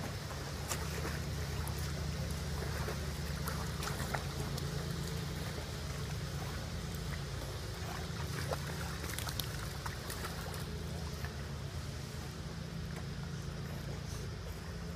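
Dogs paddling across a swimming pool, with small splashes and water sloshing, over a steady low hum.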